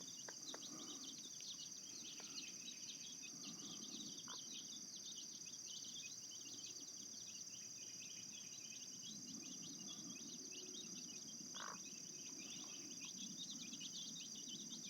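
Summer insect chorus: a steady, faint high-pitched buzz with many short chirps running through it.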